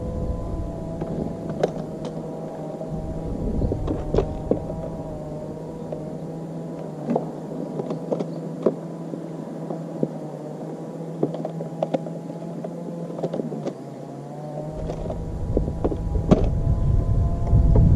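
A bass boat's motor running steadily with a wavering whine, with scattered clicks and knocks. A low rumble sits at the start and comes back about three-quarters of the way through.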